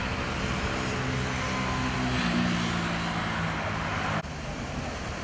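Street traffic noise: a passing vehicle's engine hum over a steady wash of tyre and road noise, the hum shifting in pitch about two seconds in. The sound drops abruptly about four seconds in.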